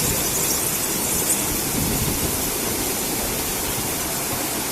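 Rollover automatic car wash machine running, a steady rushing noise of water spray and machinery.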